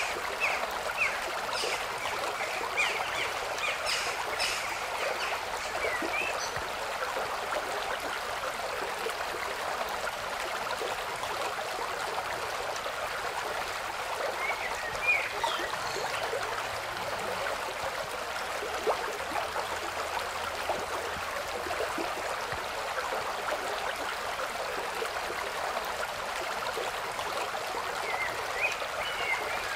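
Steady rush of running water, like a stream, with a few short high chirps in the first few seconds, once about halfway and again near the end.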